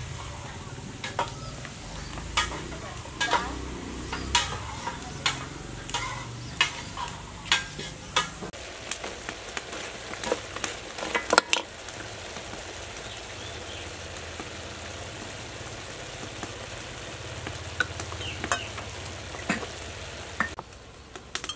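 Pieces of pig leg sizzling as they fry in a metal pot, with a metal ladle stirring them and clinking sharply against the pot, the clinks coming often in the first half and thinning out after.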